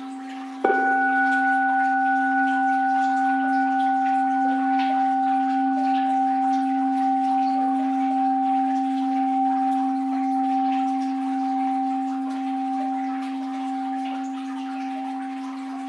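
An orin, a Japanese Buddhist standing bell, struck once about half a second in, over the tail of an earlier strike. It rings on long, with a low hum and a clear higher tone, slowly fading with a gentle wavering. A faint patter of water lies beneath it.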